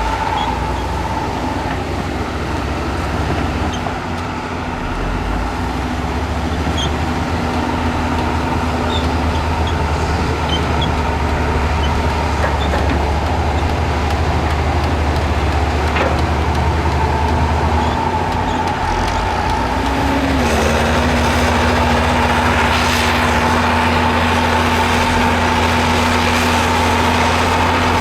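Heavy earthmoving machinery, a hydraulic excavator and a bulldozer, with their diesel engines running under work, a deep rumble with a steady high whine over it. The engine note shifts about twenty seconds in, as the load changes.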